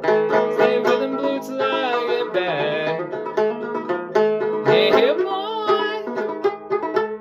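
Kentucky-style mountain banjo in open gCGCD tuning, played in a steady old-time rhythm of plucked notes, with some notes sliding in pitch.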